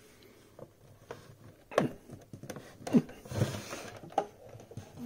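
Handling noise as a power-cord plug is worked into the AC socket on the back of a plastic portable radio: scattered small clicks, knocks and scrapes, with a few short falling squeaks.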